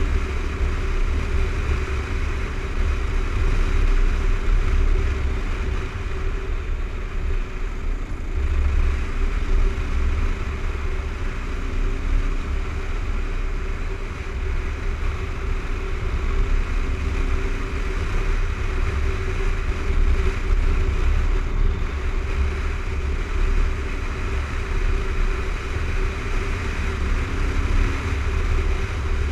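Kawasaki KLR 650's single-cylinder engine running at a steady cruise, with heavy wind buffeting on the microphone and tyre noise on gravel.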